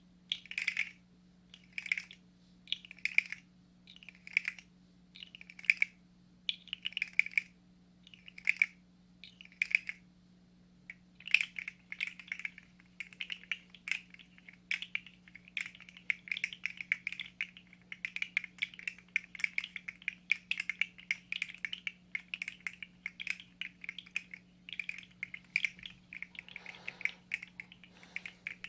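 Articulated plastic segments of a 3D-printed fidget slug clicking and rattling as it is flexed, in short bursts about once a second, then in rapid, nearly continuous clicking from about eleven seconds in.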